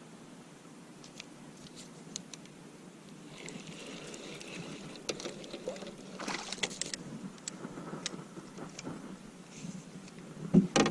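Scattered clicks, rattles and rustling of fishing gear being handled in a small boat as a small bluegill is reeled in and landed, growing busier about six seconds in.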